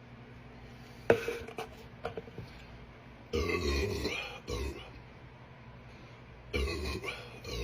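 A person burping: one long belch about three seconds in, a short one right after, and another long belch near the end. Before them, about a second in, there is a sharp click.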